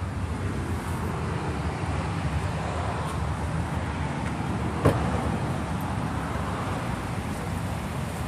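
Steady low rumble of a motor vehicle, with a single sharp knock about five seconds in.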